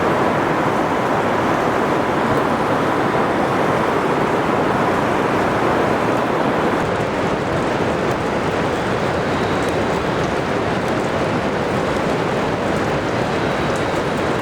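Heavy rain falling during a thunderstorm: a steady, even downpour hiss.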